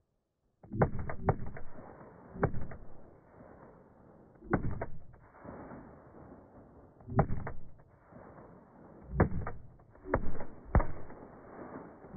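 Sharp bangs going off beneath a smoking mound of earth, in small clusters roughly every two seconds, each with a short rumbling tail.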